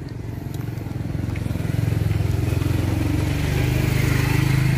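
A motor vehicle's engine running, growing steadily louder as it draws near and loudest near the end.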